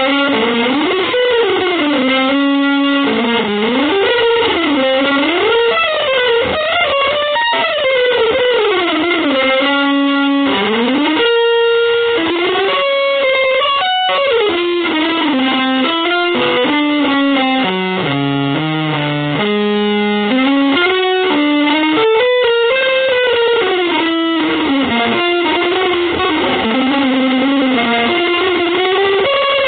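Electric guitar through distortion and effects playing a free-form improvised line, full of long sliding pitch bends and quick stepped runs of notes.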